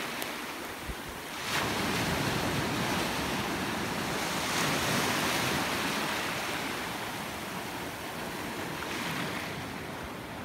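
Sea surf washing in over shallow water. A wash swells up about a second and a half in and slowly fades away.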